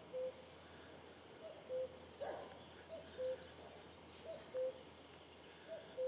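Faint bird calling: a short two-note call, a higher note then a lower held one, repeated about every second and a half, with a brief rising chirp from another bird about two seconds in.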